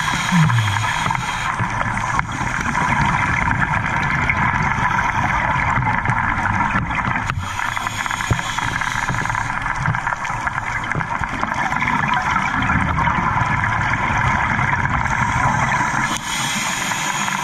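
Underwater sound through a dive camera's housing: a steady hiss and rumble, with gurgling bursts of scuba regulator exhaust bubbles about every seven to eight seconds.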